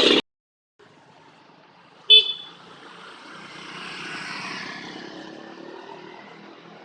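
A single short, sharp horn toot about two seconds in, followed by a passing vehicle that swells and then fades away.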